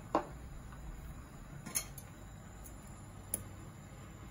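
Metal chopsticks and tableware clinking against dishes and an aluminium pot: three sharp clinks, the first the loudest with a brief ring, spaced about a second and a half apart.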